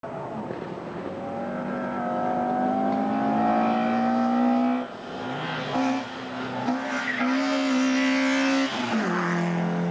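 Group A Peugeot 106 hill-climb car at full throttle up a mountain road, its engine note rising through a gear for about five seconds. About halfway there is a brief lift for a gear change, then it runs at high revs again and the pitch drops sharply near the end as the driver lifts off for a bend.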